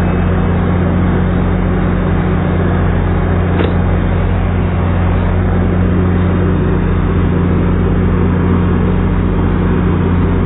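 Steady, loud, low drone of a stopped GO Transit diesel train, its locomotive's engine running at a constant speed. There is one brief knock about a third of the way in.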